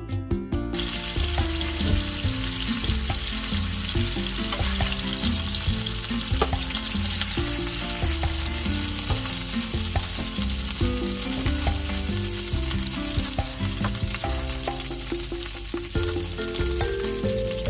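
Chicken pieces frying in hot oil in a pan: a steady loud sizzle that comes in about a second in, with background guitar music underneath.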